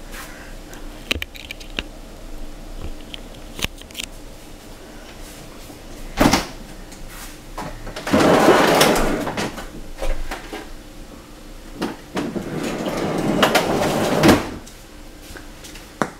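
Household handling noises: scattered clicks and knocks, then two longer rustling, scraping sounds about halfway through and near the end, the second one growing louder before it stops.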